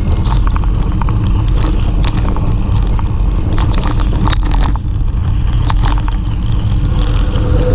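Wind buffeting the microphone of a bike-mounted action camera on a fast mountain-bike descent down a wet dirt track, a steady low rumble with the tyres and bike rolling over the rough surface. Scattered clicks and knocks come through as the bike jolts, most of them in the middle of the stretch.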